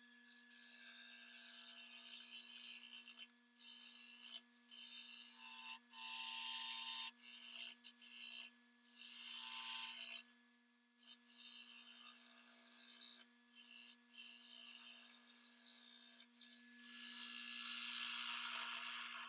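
Cherry wood being worked on a running wood lathe: a steady motor hum under repeated scraping passes of a tool on the spinning wood. Each pass stops abruptly, and the longest and loudest comes near the end.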